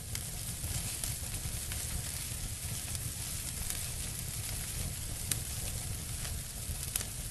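Burning-fire sound effect: a steady crackling hiss of flames over a low rumble, with a few sharp pops, the clearest about five and seven seconds in.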